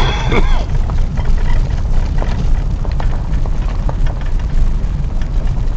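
Steady low rumble of a vehicle driving, with wind buffeting the microphone.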